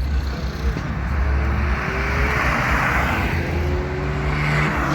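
Car engine accelerating past, its pitch rising steadily for several seconds over a heavy low exhaust rumble.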